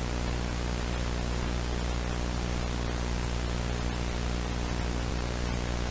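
Steady static hiss with a low electrical hum underneath, like a broadcast channel with no programme on it.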